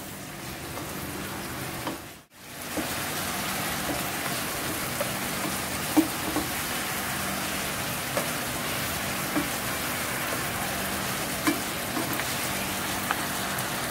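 Chicken pieces sautéing in oil and a soy-and-oyster-sauce mixture in a non-stick frying pan, a steady sizzle, with a few light knocks of the stirring spoon against the pan. The sound drops out briefly about two seconds in.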